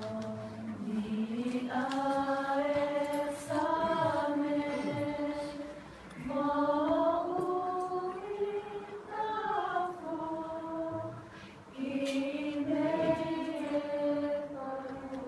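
A group of voices singing a hymn-like song in long, held phrases of a few seconds each, with little or no instrumental backing.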